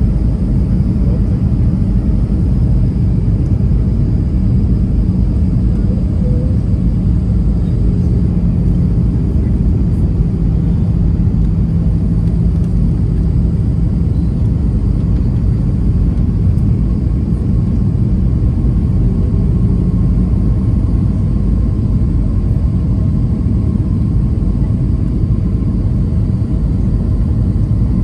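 Steady jet engine and airflow noise heard inside an airliner cabin on descent for landing: a deep, even rumble with faint steady hums above it.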